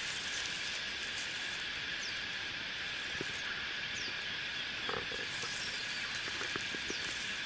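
A steady, high-pitched chorus of calling animals, with a short falling chirp about every two seconds and a few faint clicks about five seconds in.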